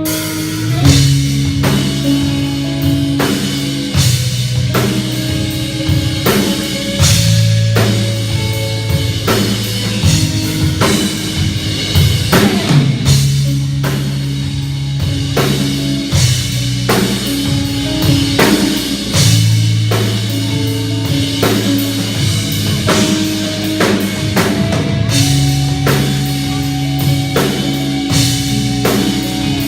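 Rock band playing an instrumental passage: drum kit with kick and snare, held bass guitar notes and electric guitar. The drums come in about a second in and keep a steady beat.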